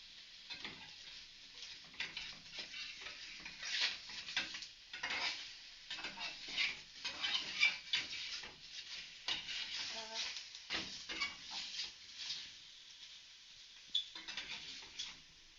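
Bacon sizzling in a hot frying pan, cooking in its own fat, while a utensil is stirred and turned through it with many irregular scrapes and knocks against the pan. The stirring pauses briefly and starts again near the end.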